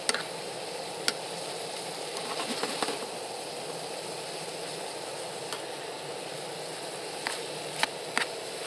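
Duck, pears and blackberries in a chicken-stock sauce sizzling steadily in a pan, with a few sharp clicks about a second in and near the end.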